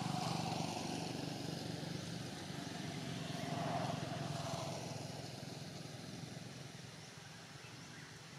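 A motor vehicle's engine running and passing by, its pitch rising and falling twice, then growing fainter toward the end.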